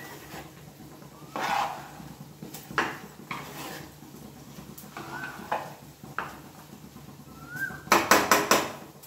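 Steel ladle stirring raw rice through a moist chicken masala in an aluminium pressure cooker: scattered scrapes and clinks of metal on metal, then a quick run of five or six louder knocks near the end.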